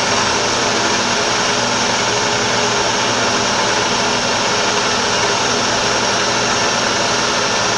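Milling machine running with a steady mechanical hum, not yet cutting.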